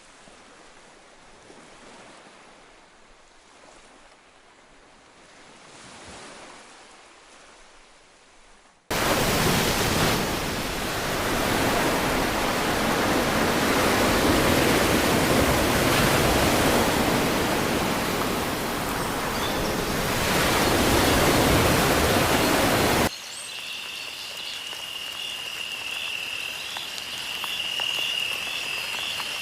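Faint outdoor ambience, then an abrupt cut about nine seconds in to loud, steady rushing water. About two-thirds of the way through it cuts again to a quieter bed with a steady, high-pitched pulsing trill.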